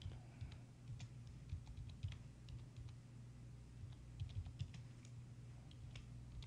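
Faint computer keyboard typing: irregular key clicks over a low hum.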